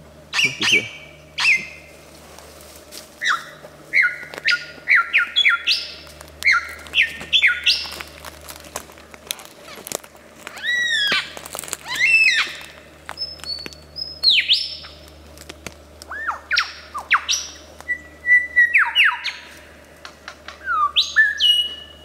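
Male superb lyrebird singing during his tail-fanned courtship display: a fast, varied run of loud whistles and sweeping notes, some rising and many falling, in short phrases with brief gaps between them.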